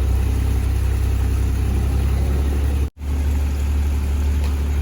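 Boat engine running steadily with a low drone; the sound cuts out completely for an instant about three seconds in.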